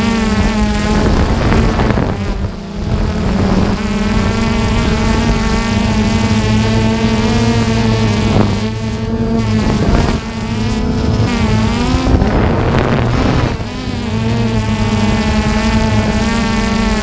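DJI Phantom 2 quadcopter motors and propellers running with a steady, buzzing hum. The pitch dips and wavers a few times as the throttle changes, with some wind on the microphone.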